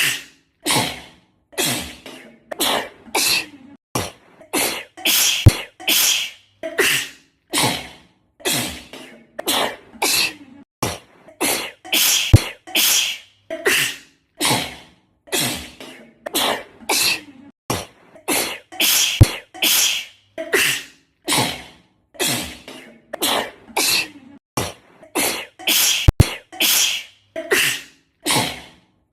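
A girl sneezing again and again in a fast, unbroken string, about one short sneeze a second with silent gaps between them, edited into a loop. Sharp clicks come about every seven seconds where the loop joins.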